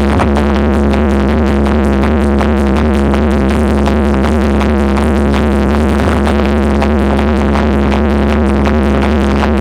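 Electronic dance music with a heavy, steady bass, played loud through the Vortech 8000 sound system.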